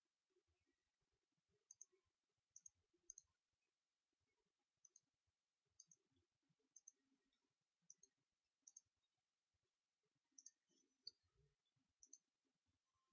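Near silence, with faint short clicks about once a second at uneven spacing.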